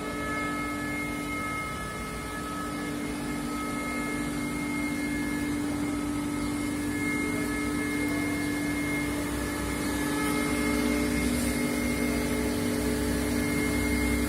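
Steady machine hum with several constant tones over a low rumble, getting slightly louder in the last few seconds: a double-head PVC and aluminium window-profile welding machine running.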